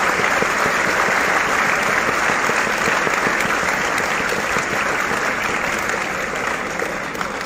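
Audience applauding after a recited verse: steady, dense clapping that thins out near the end.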